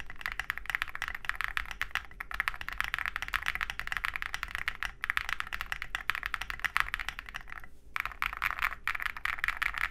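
Steady fast typing on an OwLab Jelly Epoch custom mechanical keyboard, with lubed and filmed Durock POM linear switches, a polycarbonate plate and SA-profile keycaps: a dense run of keystroke clacks, broken by one short pause about three-quarters of the way through.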